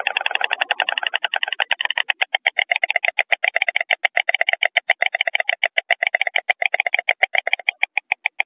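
White storks clattering their bills: a fast, even run of wooden clacks, about ten a second, the greeting display between mates at the nest.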